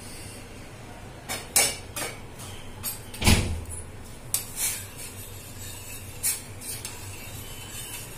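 Kitchen utensils clinking and knocking against a metal pot on the stove, about ten irregular strikes, with a duller thump about three seconds in the loudest, over a low steady hum.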